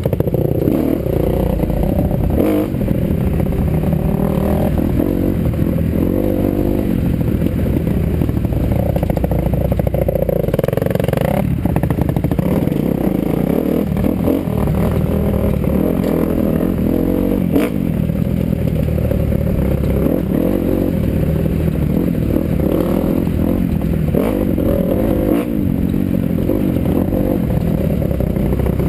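Dirt bike engine running, its pitch rising and falling as the throttle opens and closes, with knocks and rattles from the bike over the bumps of a rough trail.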